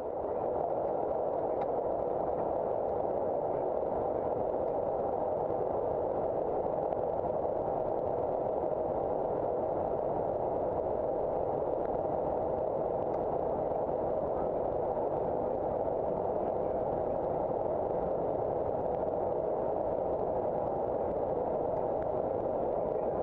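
Steady rushing flight-deck noise inside a Boeing 747-400 cockpit in flight, the airflow over the nose and windows on the descent. It holds one even level throughout, with no voices.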